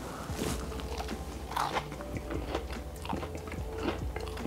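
A person bites into and chews a croissant-dough roll with a crisp chocolate, roasted-hazelnut and feuilletine coating. A sharp crunch about half a second in is followed by a run of crackly chewing crunches.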